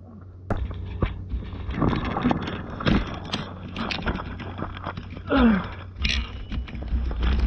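A loaded touring bicycle rolling down a steep, bumpy gravel road: tyres crunching over loose stones and the bike rattling and knocking over the bumps, starting up about half a second in. It is heard through a camera mounted on the bike.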